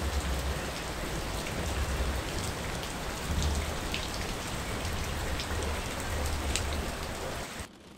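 Heavy rain falling steadily, with scattered sharp drops striking close by. It cuts off suddenly near the end.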